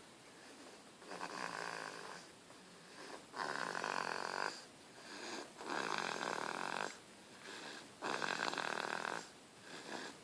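A baby snoring in its sleep: four snores, one roughly every two and a half seconds, each about a second long, with a softer breath between each pair.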